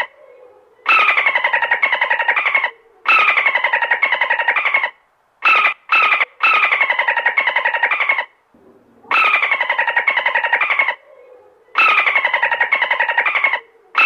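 Dolphin calls: bouts of rapid pulsed squeaks, each about two seconds long with a falling squeal running through it. The same call repeats at even spacing with short gaps, broken once near the middle by two brief bursts.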